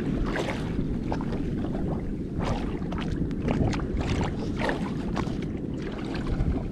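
Steady wind rumble on the microphone aboard a small boat at sea, with water slapping against the hull a few times.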